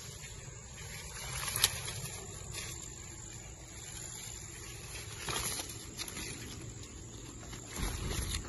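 Grapevine leaves rustling and brushing close against the phone as a hand pushes through the vine, with a sharp tap about a second and a half in and louder rustles near the middle and the end.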